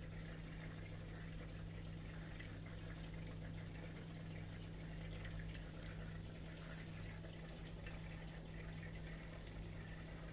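Aquarium pump running: a steady low hum with faint trickling, bubbling water.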